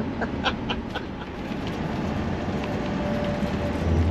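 Motorhome cruising at highway speed, heard from inside the cab: a steady low rumble of engine and road noise that grows louder near the end.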